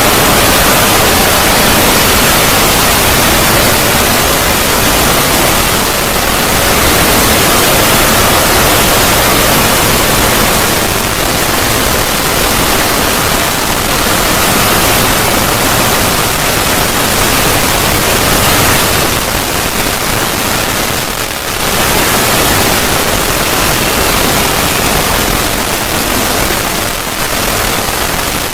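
Loud, steady static-like hiss filling all pitches evenly, with no tone or rhythm: a 'void' noise sound effect. It dips briefly about three-quarters of the way through.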